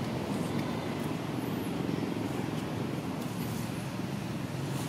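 Steady low rumbling background noise without a break, with a couple of faint high chirps about a second and a half in and again near three and a half seconds.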